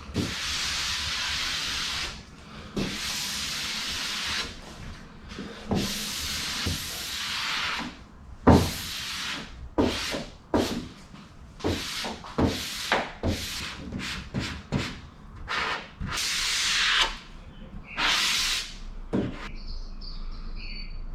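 Vinyl film being rubbed down onto a car bonnet: three long hissing rub strokes, then a quicker run of short strokes with a few knocks.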